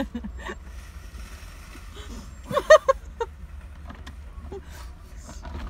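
A short burst of laughter, three quick giggles about two and a half seconds in, over a steady low rumble.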